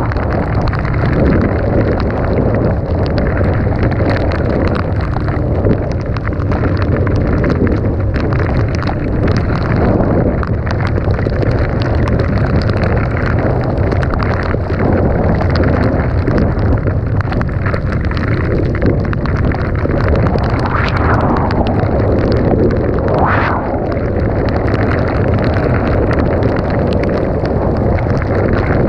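Dirt bike engine running under way, with wind buffeting the microphone; the engine note swings briefly twice about three-quarters of the way through.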